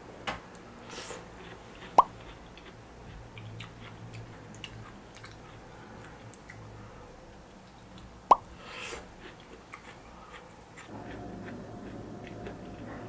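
Two sharp clinks of a spoon against a bowl, about six seconds apart, each with a short ring, amid faint eating sounds. A steady low hum comes in near the end.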